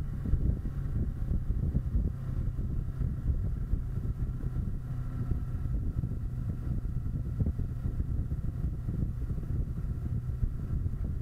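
Kawasaki Versys 650's parallel-twin engine running steadily under way, with wind rumbling on the bike-mounted microphone.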